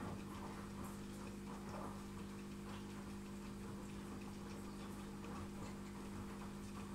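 Steady electrical hum from aquarium equipment such as an air pump or filter, with faint short irregular sounds over it.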